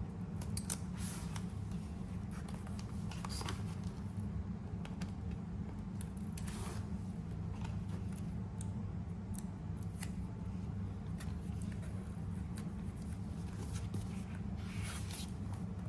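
Scissors snipping paper in short, scattered cuts, with light paper rustling and a steady low hum underneath.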